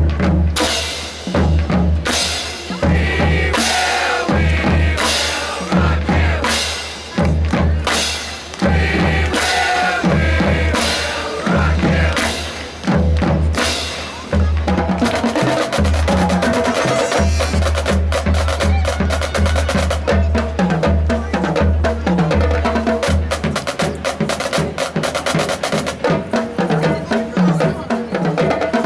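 Marching band percussion section playing a drum feature: deep bass drum hits with snare drums. It opens with loud, spaced, accented strikes, then settles into a steady, dense groove about halfway through.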